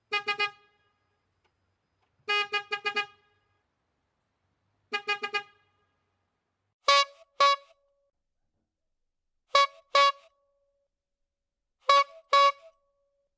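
Car horn honking in separate groups: three bursts of several rapid toots, then three double beeps from a higher-pitched horn.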